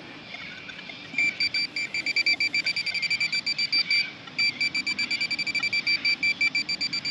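Handheld metal-detecting pinpointer beeping rapidly at a fixed high pitch, about eight beeps a second, with a short pause in the middle: it is sounding on metal still in the dig hole.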